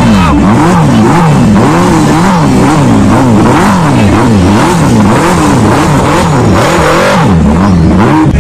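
Sport motorcycle engine revved again and again, its pitch rising and falling in quick throttle blips a little more than once a second.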